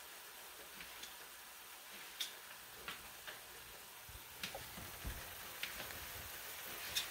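Kitchen knife tapping a plastic cutting board while dicing tomatoes: faint, irregular taps, several seconds apart at first and coming a little more often later.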